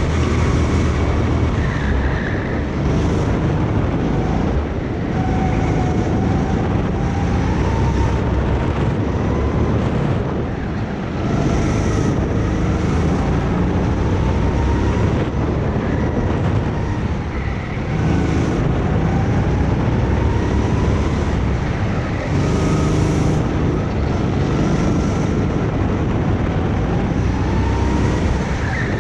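Go-kart engine under full throttle around a lap, its pitch climbing steadily along the straights and dropping back several times as the kart slows for corners.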